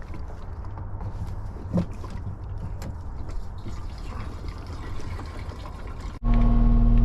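CAT 279D compact track loader's diesel engine running under work, a low rumble with scattered knocks. About six seconds in it cuts abruptly to a much louder, steady engine drone with a strong held tone.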